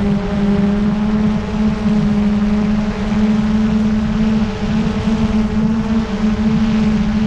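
Multirotor drone's motors and propellers whining steadily in flight, heard close up, a strong hum with higher overtones that waver slightly in pitch over a rough low rumble.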